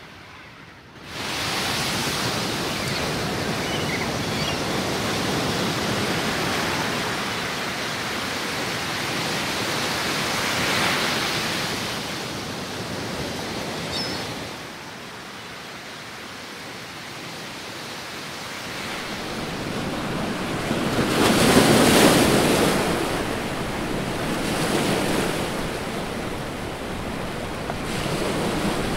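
Ocean surf breaking on the shore: a steady rushing wash that swells with each wave, the biggest surge about three quarters of the way through.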